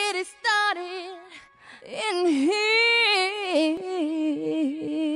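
A single high, female-sounding voice singing an unaccompanied melody with sliding, wavering notes.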